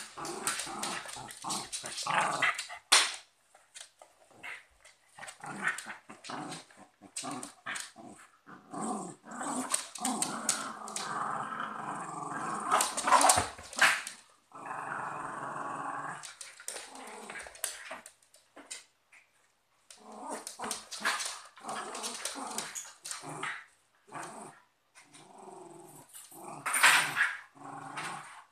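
Two dogs, a cocker spaniel and a West Highland white terrier, play-fighting: bursts of growling on and off, with a few sharp, louder barks standing out.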